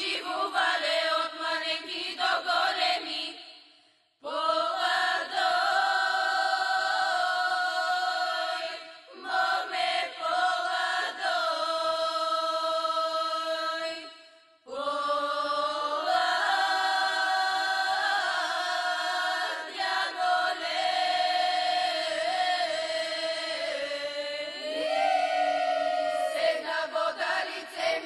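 A group of women singing a Bulgarian folk song together in long, held phrases, breaking off for breath about four seconds in and again about fourteen seconds in.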